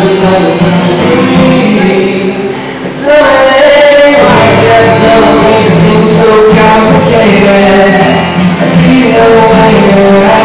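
Live music: a man singing over a strummed acoustic guitar, with a brief drop in loudness about three seconds in.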